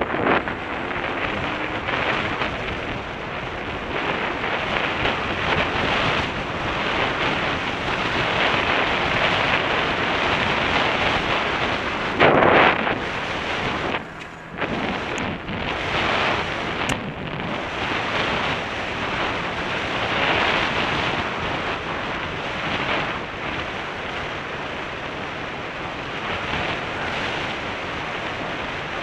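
Steady wind noise on the microphone of a camera mounted on a moving trail motorcycle, drowning out any clear engine sound. It swells sharply about twelve seconds in and briefly drops away about fourteen seconds in.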